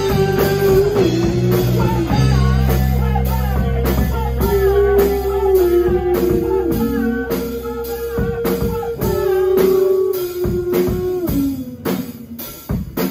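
Live rock band playing: electric guitars, electric bass and a Pearl drum kit. A held lead guitar line bends between notes over steady drum hits. The low bass notes drop out about ten seconds in, and the music thins and dips near the end of the song.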